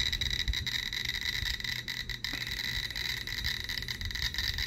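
GQ GMC-320 Plus Geiger counter clicking rapidly and irregularly, several clicks a second, as it counts radiation from the uranium glaze of a Fiestaware radioactive red plate. It reads about 440 to 510 counts per minute, and a steady faint high whine runs underneath.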